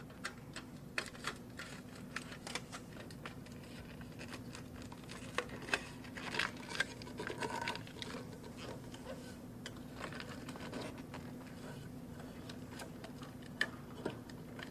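Hands pressing and working metal foil shielding tape around a fan housing and magnetron tube, giving faint scattered clicks and crinkles, busiest in the middle stretch. A steady faint hum runs underneath.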